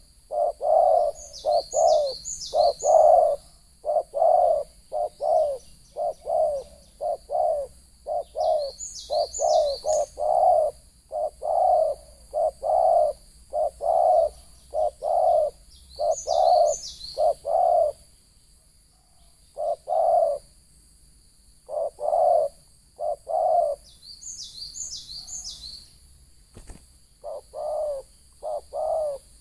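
Spotted doves cooing in quick, repeated phrases of short notes, with a brief lull about two-thirds of the way through. A small bird's high chirps come in short clusters four times, over a steady high-pitched whine.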